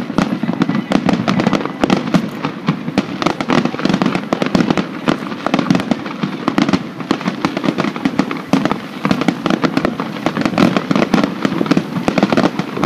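Aerial fireworks display: shells bursting in a dense, unbroken run of bangs and crackles, many a second, with no pause.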